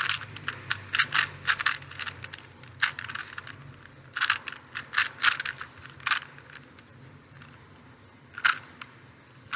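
Plastic 3x3x3 Rubik's cube being turned by hand: quick runs of clicking layer turns, thinning to a few isolated clicks in the last few seconds.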